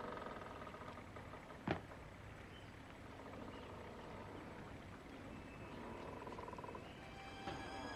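Mostly quiet, broken by one sharp knock about two seconds in: a footstep landing on the wooden deck of a boat. Faint music tones come in near the end.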